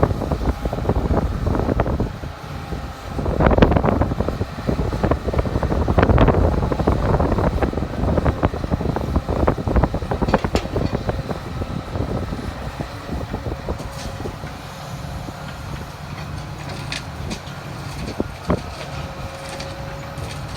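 Komatsu excavator at work, its diesel engine running, with loud rattling and knocking from about three to ten seconds in. After that the engine settles to a steadier, quieter note with a few sharp knocks.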